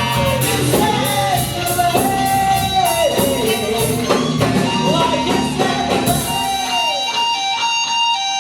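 Live band music: an electric guitar lead with bending notes over bass and drums. About six to seven seconds in, the drums and bass drop out, leaving held notes ringing.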